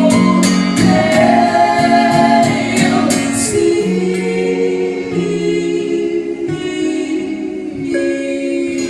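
Music with voices singing held chords, in the manner of a choir, over a light ticking beat that stops about three and a half seconds in; sustained chords carry on after that.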